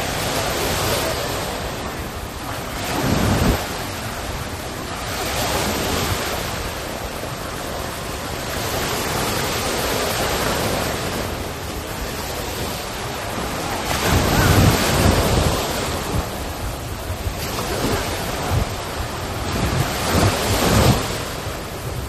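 Small waves washing up onto a sandy beach and drawing back, a steady rush of surf that swells and fades every few seconds. Wind buffets the microphone now and then, giving short low rumbles, about a third of the way in and twice near the end.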